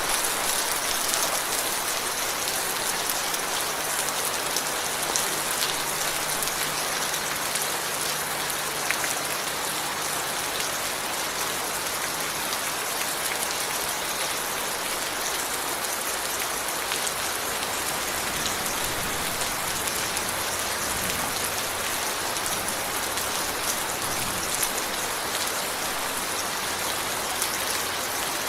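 Steady, heavy rainfall: a dense hiss of drops hitting a surface, with fine individual drop ticks throughout and no let-up.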